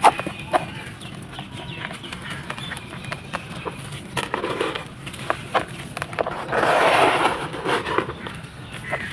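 Gritty sand-cement balls being crumbled, a crunchy crackling with scattered sharp cracks and a longer crumbling rush about seven seconds in.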